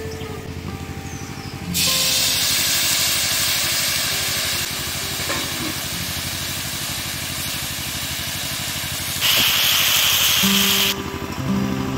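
Drumstick (moringa) pieces sizzling in hot oil and spices in a karahi. A loud hiss starts abruptly about two seconds in, eases a little, then rises again before cutting off near the end, over background music.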